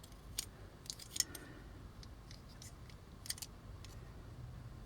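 A few faint, sharp clicks and taps of a small vintage toy robot being turned over in the hands: one, then a quick cluster about a second in, and a pair past the three-second mark.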